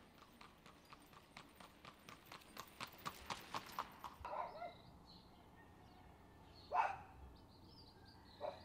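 Clip-clop of a horse's hooves on asphalt as it pulls a light two-wheeled sulky cart, about five beats a second, growing louder as it approaches and cutting off about four seconds in. Two brief sharp sounds follow, the first, about seven seconds in, the loudest thing heard.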